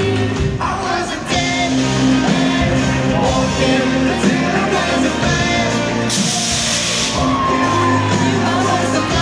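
Live rock band playing with a male lead singer, heard from the audience in a large hall.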